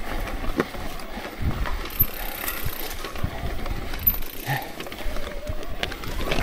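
Electric mountain bike climbing a loose rocky trail: tyres grinding over stones, with irregular knocks and rattles from the bike.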